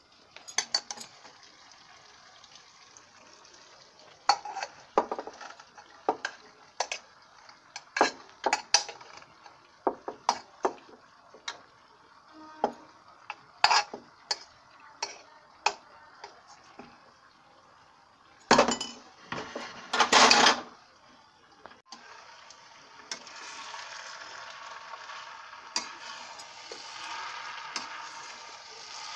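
A steel spoon knocking and scraping against a pressure cooker and a kadhai as cooked rice is scooped into the pan, with a quick run of knocks about two-thirds of the way through. In the last seven seconds a steady sizzling rises as the rice is stirred into the hot vegetables and masala.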